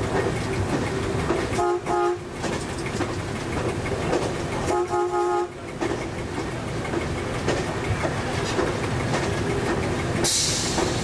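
MAN diesel railcar heard from the driver's cab, running steadily along metre-gauge track, with two short horn blasts about two and five seconds in. A sharp hiss starts near the end.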